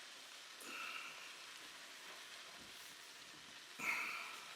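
Beef liver, onions and potatoes sizzling steadily in a frying pot, with two short, brighter sounds over the sizzle, about a second in and again, louder, near the end.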